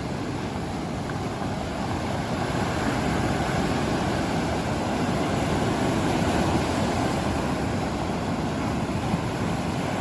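Ocean surf rushing and washing onto the shore in a steady roar, growing a little louder about two seconds in.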